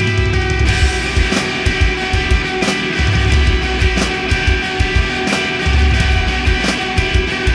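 Post-hardcore rock band playing: ringing guitar chords over bass, with the drums and cymbals coming in under them about a second in.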